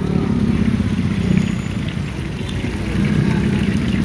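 A motor vehicle's engine running nearby: a steady low rumble.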